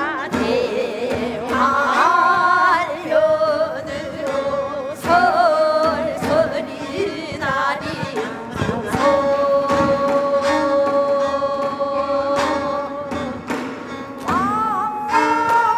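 Women's voices singing a Namdo minyo, a Korean southern folk song, with wide, wavering vibrato and a long held note in the middle. Accompanied by daegeum flute and by janggu and buk drum strokes.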